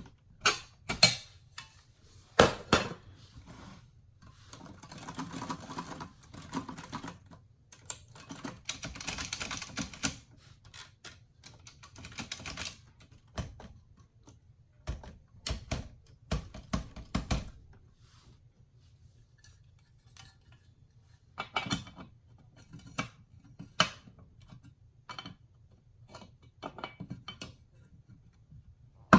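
1962 Royal Signet manual typewriter being typed on: sharp key strikes in uneven bursts, with two longer stretches of rattling mechanism noise in the first third.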